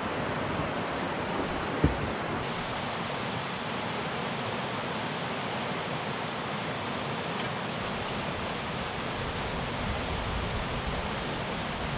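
Steady rush of a river rapid, white water pouring over rocks. A single brief knock sounds about two seconds in.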